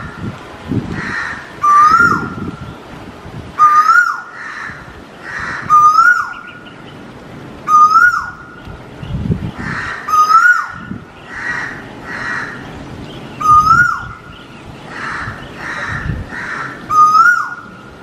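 Male Asian koel calling. The same short rising note comes over and over, about every two seconds, nine times in all, with fainter, rougher bird calls between.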